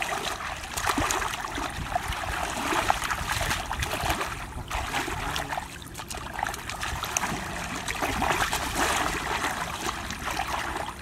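Shallow water in a flooded rice field sloshing and splashing irregularly, many small splashes close together, as the water is worked through by hand while fishing.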